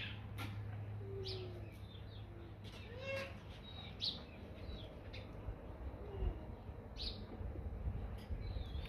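Birds chirping: scattered short high chirps, some sliding down in pitch, and a few lower whistled calls, over a steady low hum.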